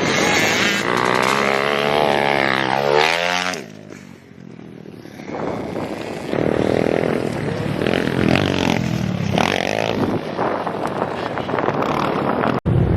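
Motorbike engine revving, rising in pitch for about three seconds and then cutting back sharply. After a quieter moment it runs and revs again at varying pitch.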